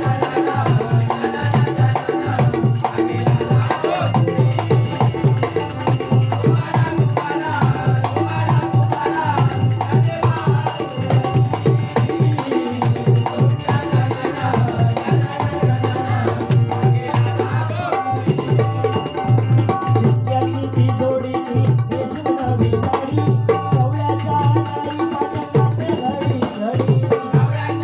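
Marathi bhajan music: a dholki drummed fast and continuously under harmonium, with a male voice singing.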